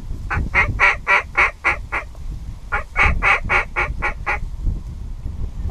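Waterfowl calls: two runs of seven loud, evenly spaced notes, about four a second, the second run starting a little before halfway.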